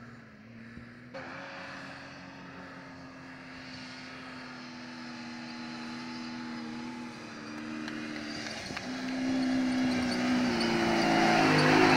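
Off-road 4x4 engine running under load on soft sand, its pitch stepping up and down. It grows louder toward the end as a Jeep Wrangler drives up the dune.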